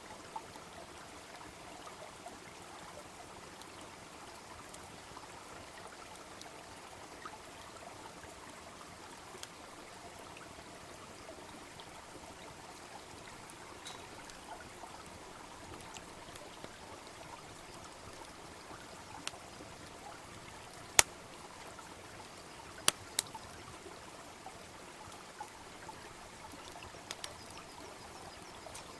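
Small brook babbling steadily, with a few sharp pops from a wood bonfire, the loudest about two-thirds of the way through.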